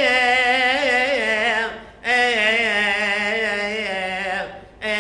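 A priest chanting a liturgical hymn solo and unaccompanied, his held notes wavering in melismatic ornaments. He breaks for breath about two seconds in and again near the end.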